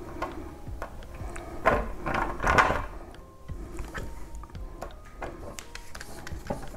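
Scattered clicks and a few short scraping rattles of hands working with small parts and tools, the loudest about two seconds in, over faint background music.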